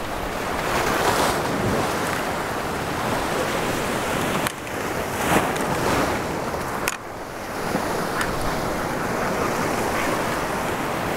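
Surf breaking on a rocky reef shore and washing over the low rocks, a continuous rushing of water, with wind buffeting the microphone.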